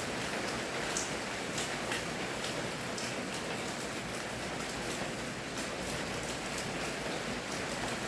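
Steady rain falling, a dense even hiss with many separate drops ticking sharply on a surface.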